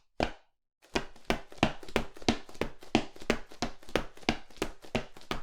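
Footsteps on a hard surface: a single step, a short pause, then a quick run of steps, about four a second.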